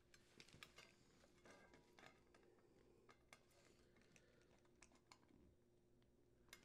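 Near silence, with a few faint scattered clicks of a screwdriver and hands working a screw into a dishwasher's sheet-metal access panel.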